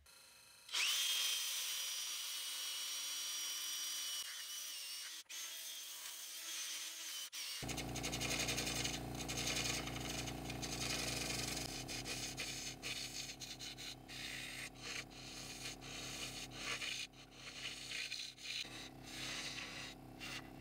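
A spinning wood-and-resin piece on a wood lathe being sanded by hand: a steady hiss with a thin, even whine. After about seven seconds it changes to the lathe motor's steady hum under the scraping and irregular ticking of a turning tool cutting grooves into a wood blank.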